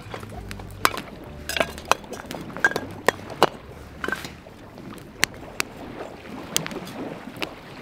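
Split firewood burning in an open fire stand, crackling with irregular sharp pops every half second to a second.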